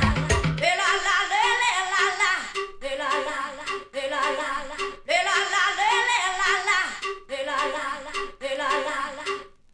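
Recorded music with singing: the bass and drums drop out less than a second in, leaving singing in short phrases over the remaining instruments, and it all stops just before the end.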